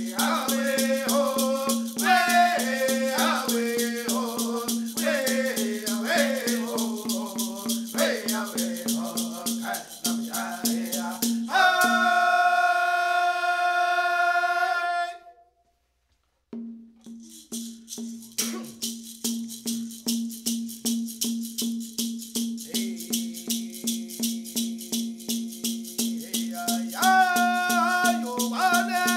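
Singing of a Women's Dance social-dance song over an even beat of shaken rattles, about three strokes a second, with a steady low tone underneath. About halfway through, a long held note ends and the sound cuts out for about a second. Then the rattle beat resumes on its own, and singing comes back near the end.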